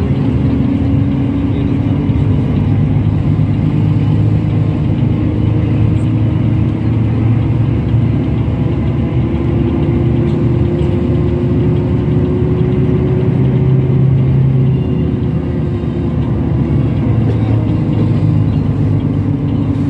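Bus engine and road noise heard from inside the passenger cabin while driving: a steady low rumble, with an engine tone that climbs slightly through the middle and falls back about three quarters of the way through.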